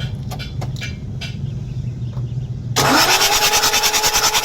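Mitsubishi 6M61 inline-six diesel engine being started: after a low steady hum with faint ticks, a starter whine kicks in suddenly near three seconds in, rising quickly and holding steady, with the loudness pulsing evenly several times a second. The engine has a hard-starting, low-power complaint.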